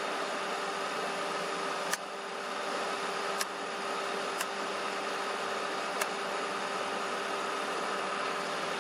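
Steady background hum with a few faint tones running through it, broken by a few faint short clicks.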